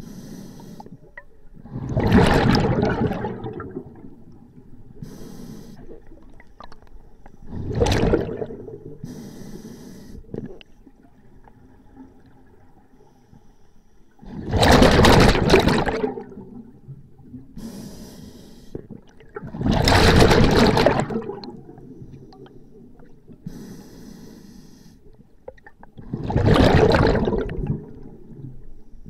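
Scuba diver breathing underwater through a regulator: five loud rushes of exhaled bubbles, about six seconds apart, with fainter hisses between them.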